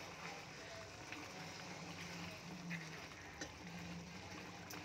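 Thick mutton gravy bubbling at a boil in a pan as it reduces and thickens. The sound is faint, with a few soft clicks.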